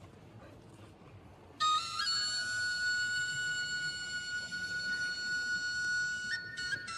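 Background music: a flute comes in suddenly about one and a half seconds in and holds one long high note, then moves to nearby notes near the end. Before it there is only faint, even background noise.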